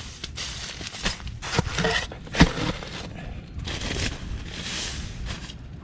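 Bivy sack fabric rustling and crinkling as it is handled and spread out, with a couple of sharp knocks, the loudest about two and a half seconds in.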